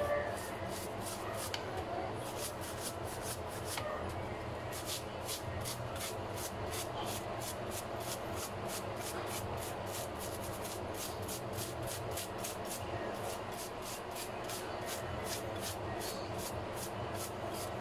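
A soft-bristled brush scrubbing a wet wooden clarinet joint in soapy water, in quick, even strokes about three a second.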